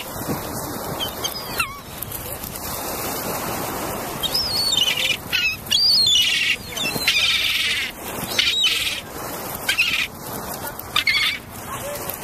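Birds calling: many short, high chirps and whistled notes, with a few quick buzzy trills, over steady background noise.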